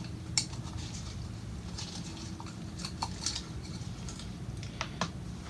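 Faint, scattered clicks and scrapes of a metal pick against a plastic oil filter housing cap as the large O-ring is pried out of its groove.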